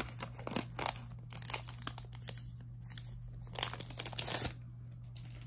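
Album packaging crinkling and rustling as it is handled and torn open, in irregular crackly bursts that are densest about four seconds in, then die away.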